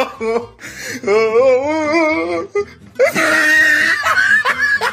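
Young goat bleating: a long, quavering cry, then a louder, harsher one about three seconds in.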